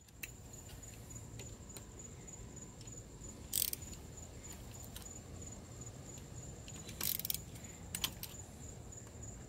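Hand ratchet and socket loosening the injector hold-down and oil-spout bolts on a 7.3L Powerstroke diesel: scattered metallic clicks and clinks, loudest about three and a half seconds in and again around seven and eight seconds in, over a faint steady high whine.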